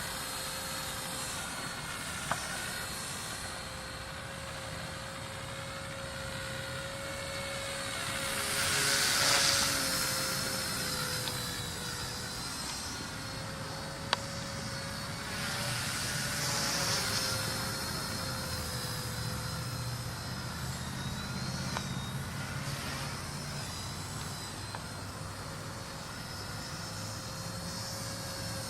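A Blade mCPx micro collective-pitch RC helicopter whines steadily in flight, its pitch dipping a little now and then. It swells louder with a rushing whoosh twice, about a third of the way in and again past the middle. A single sharp click comes about halfway through.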